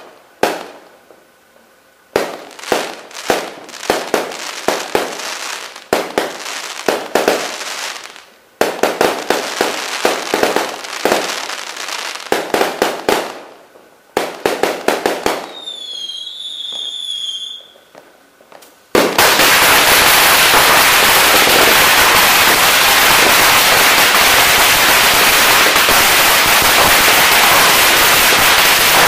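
Aerial fireworks bursting overhead, crackling in clustered volleys of sharp pops through the first fourteen seconds or so, with a brief wavering whistle a little later. About nineteen seconds in, a long string of firecrackers hung on a pole goes off in one loud, unbroken rapid-fire crackle of bangs.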